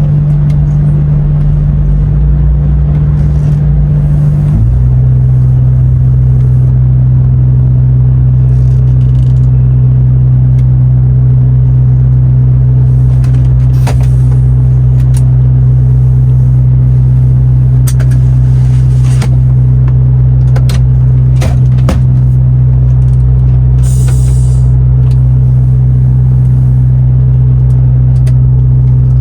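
DAF XF truck's diesel engine and road drone heard from inside the cab, a loud steady hum whose pitch steps down a little once about four and a half seconds in. A few faint clicks are heard later.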